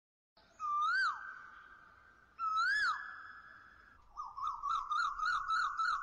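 Whistle-like intro sound effect: two separate rising-then-falling whistled notes, each ringing on and fading away, then a quick warbling run of rising-and-falling whistles, about three a second, near the end.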